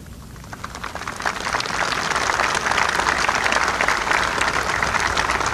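Crowd applauding, building up over the first couple of seconds and then holding steady.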